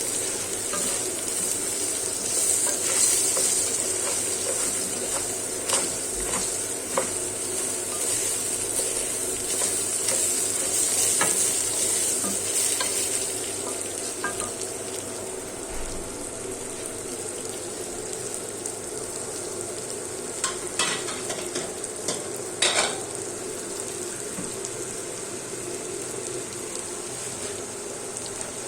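Rice sizzling as it toasts in hot fat in a pot while a spoon stirs it, scraping and clicking against the pot. The stirring is busiest in the first half, and a few sharper clinks come about three-quarters of the way through.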